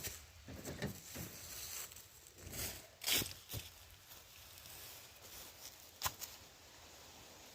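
Footsteps and rustling, with a few knocks and a sharp click about six seconds in.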